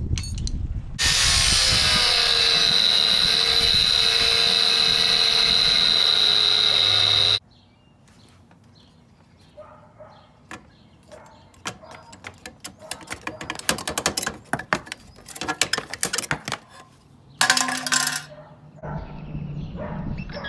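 A power tool runs steadily at one pitch for about six seconds with a high whine, then cuts off. Irregular clicking and clattering of tools and metal parts follow, with a short loud burst near the end.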